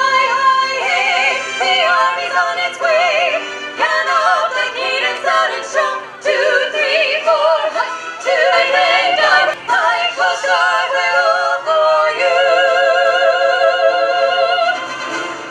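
Music: a solo singer in an operatic style holding long notes with heavy vibrato.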